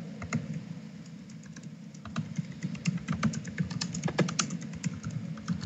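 Typing on a computer keyboard: irregular keystroke clicks, sparse at first, then a quicker run of keys from about two seconds in.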